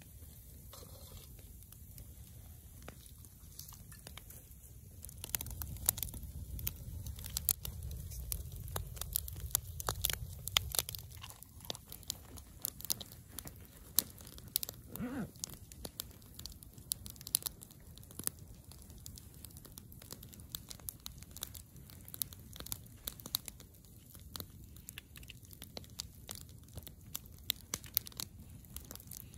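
Wood campfire crackling, with frequent sharp pops scattered throughout. A low rumble runs from about five to eleven seconds in, and a short squeak comes about fifteen seconds in.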